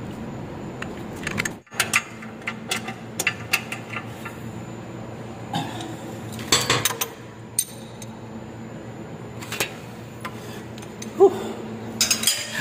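Irregular metallic clicks and clinks of a hand wrench working on bolts in a steel machine frame, over a steady low machinery hum.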